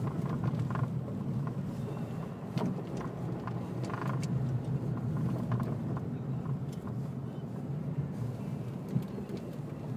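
Car cabin noise while driving slowly on a snow-covered road: a steady low rumble of engine and tyres, with a few faint knocks.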